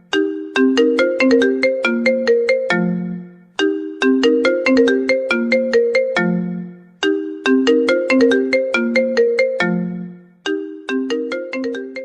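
A mobile phone ringtone melody: a short tune of sharply struck notes ending on a low held note, repeating about every three and a half seconds, three times over, with a fourth play starting near the end.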